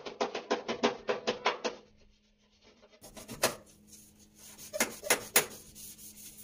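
Scouring sponge scrubbing a stainless-steel gas stove top in quick back-and-forth strokes, about seven a second, for roughly the first two seconds. After a pause come a few sharp clicks and knocks.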